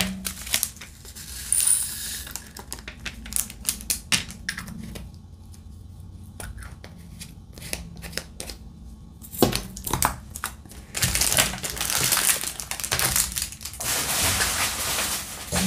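Crinkling plastic bags of diamond-painting drills, with many small plastic clicks and rattles from the drills, drill tray and storage containers being handled, and a denser stretch of rustling in the last few seconds.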